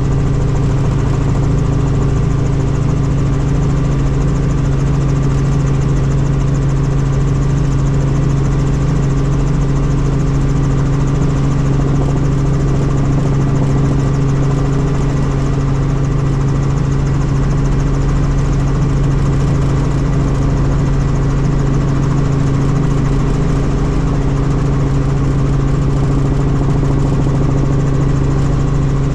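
Helicopter in flight: a loud, steady drone of engine and rotors with a strong low hum and a few fainter steady whines above it.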